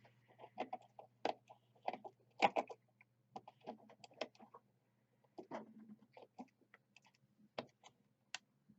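Small metal tools clicking and tapping irregularly against a rebuildable atomizer's deck and post screws while a coil leg is reseated, a dozen or so light clicks with short pauses between them.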